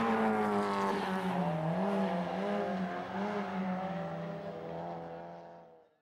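BMW E30 3 Series rally car's engine revving up and down as the throttle is worked through a sideways slide, with tyre noise underneath. The sound fades out near the end.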